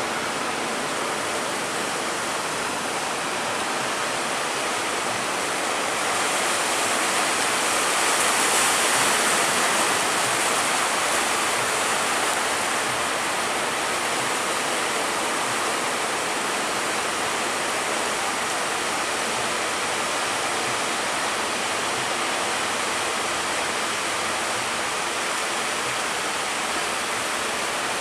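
Steady rushing noise of rough sea water, swelling a little about eight seconds in.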